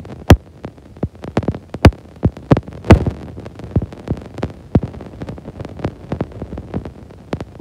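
Irregular sharp knocks and thumps, a few a second and uneven in strength, the loudest about a third of a second, two seconds and three seconds in, over a low steady hum.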